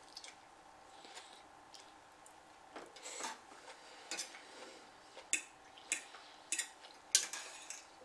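A fork scraping and clinking against a metal plate while twirling and lifting noodles: a few light clicks at first, then a run of sharper scrapes about every half second to second from about three seconds in.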